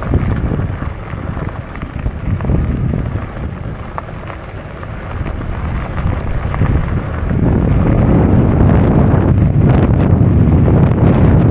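Wind buffeting the microphone: a loud, low rumbling noise that eases off for a few seconds, then grows louder again about seven seconds in.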